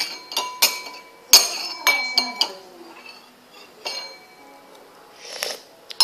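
Glass clinking as a container of the drink is shaken: a quick run of ringing clinks over the first two and a half seconds, then a few scattered ones, and a short rustle near the end.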